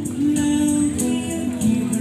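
Background music: a song with a singing voice over guitar and a steady beat of jingling percussion.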